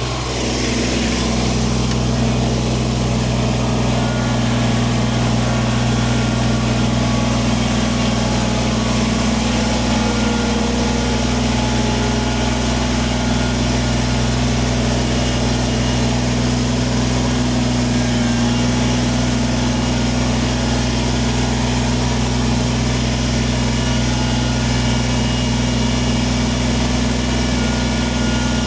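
Kubota compact tractor's diesel engine running steadily while it back-scrapes stone with the front loader. The engine comes up a little just after the start, then holds an even pitch.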